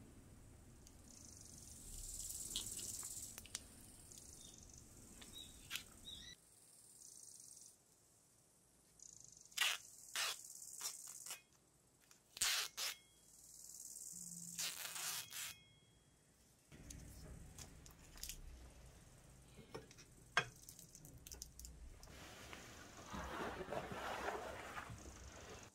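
Faint cricket ambience with light wind, with several short swishes near the middle as paper is sliced against the edge of a Damascus cleaver to test its sharpness.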